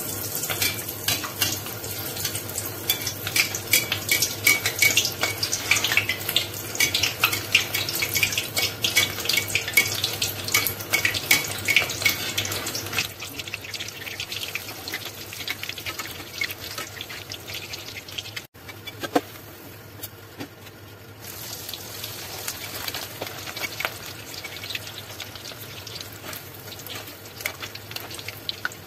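Breaded chicken drumsticks deep-frying in hot oil, a dense crackling sizzle. It is loudest over the first dozen or so seconds, then settles lower, with a brief break about 18 seconds in.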